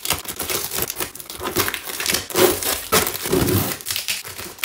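Cardboard shipping box being opened and handled close to the microphone: a continuous run of crinkling, scraping and tearing noises as its flaps and packing are worked.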